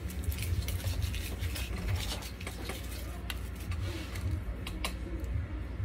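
Plastic packaging crinkling and rustling in the hands as small acrylic parts are unwrapped, with many scattered light crackles and clicks over a low steady hum.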